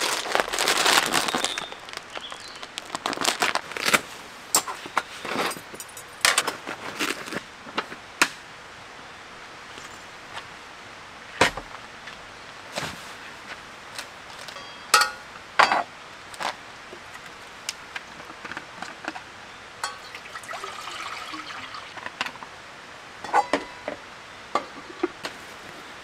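Camping gear and metal cookware being handled: a string of scattered clicks, clinks and knocks, after a short crinkle of plastic noodle packaging at the start.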